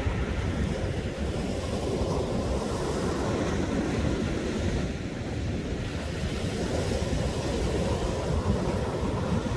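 Sea waves washing onto a sandy beach, a steady low rush, with sea wind buffeting the microphone.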